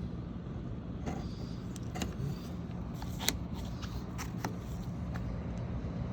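2008 Trane air handler running with a steady low hum, with several light clicks and knocks from handling over it, the sharpest about three seconds in.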